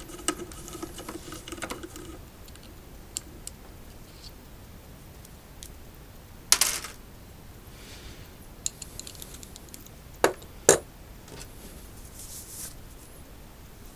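Scattered clicks and light knocks from hands working on an electric unicycle's casing and parts, with a sharper click about six and a half seconds in and two more close together near ten seconds.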